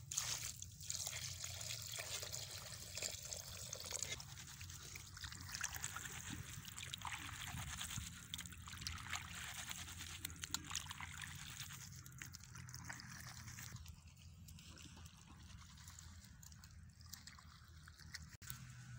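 Hands swishing and squeezing sliced onions in a steel bowl of water: faint sloshing and trickling with small wet clicks, softer in the last few seconds.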